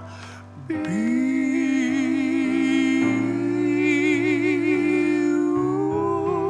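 A singer holds one long sung note with a wavering vibrato over sustained keyboard chords. The note comes in about a second in and steps up slightly near the end.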